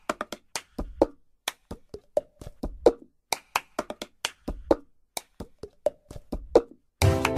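Cup-game percussion: hand claps, taps and a cup knocked and slammed on a tabletop, in a short rhythm played four times over with no other instruments. The full backing music comes in right at the end.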